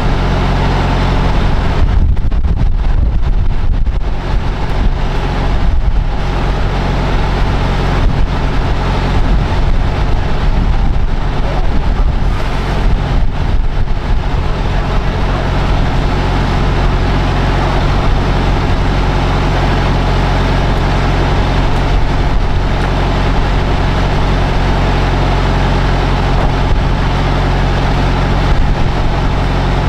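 A semi-truck's diesel engine idling steadily close by, with wind gusting across the microphone.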